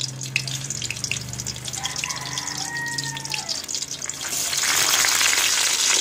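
Hot cooking oil sizzling and crackling in a frying pan as pieces of suman (sticky rice cake) are laid into it. The sizzle swells much louder a little past four seconds in, as another piece goes into the oil.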